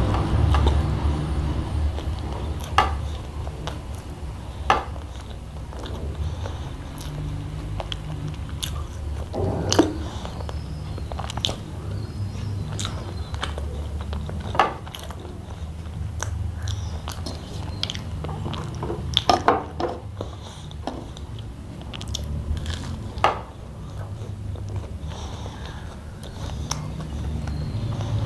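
Close-up eating sounds: chewing with sharp mouth smacks and crunches every second or two, over a steady low hum.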